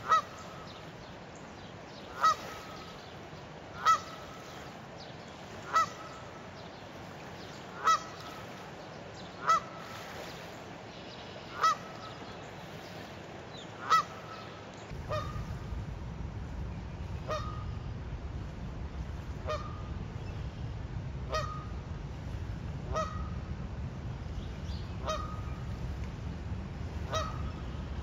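A goose honking over and over, one short call roughly every two seconds. About halfway through a low rumbling noise comes up, and the honks go on softer and a little more often.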